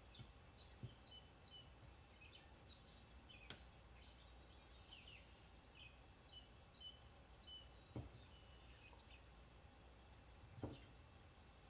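Near silence with faint small birds chirping now and then in the background, and a few soft taps.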